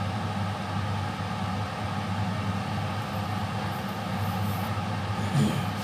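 Steady electric motor hum of a kitchen extractor fan running, with a light knock near the end.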